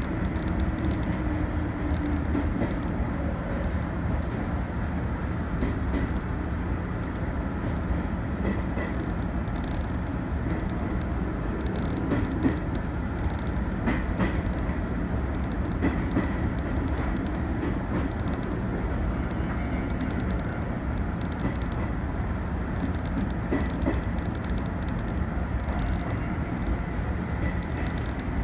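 Izuhakone Railway 3000 series electric train running, heard from inside behind the driver's cab: a steady rumble of wheels on rail. Now and then the wheels click over rail joints and points, a few times around the middle.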